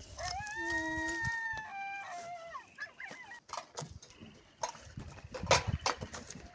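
An animal howling: one long pitched call, lasting about two and a half seconds, that swells, holds and then falls away. After it comes a scatter of sharp snaps and knocks.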